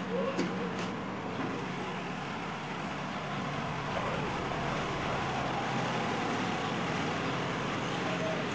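Steady motor-vehicle noise with a low, even hum, and a couple of faint clicks about half a second in.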